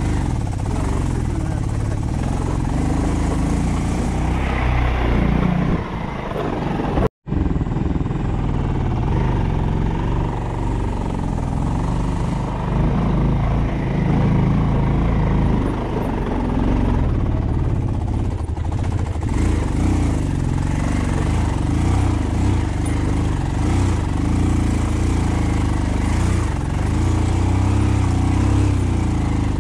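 A vehicle running on the road: steady engine and road noise. The sound cuts out for a moment about seven seconds in.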